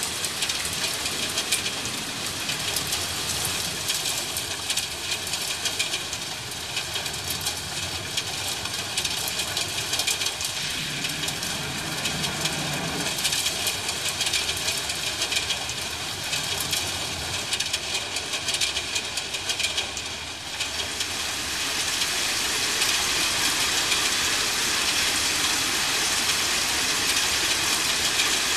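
Steady rain falling, growing louder and heavier a little over two-thirds of the way through.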